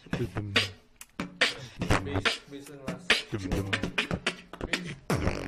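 Beatboxing: quick, sharp vocal percussion hits, several a second, over a low bass tone.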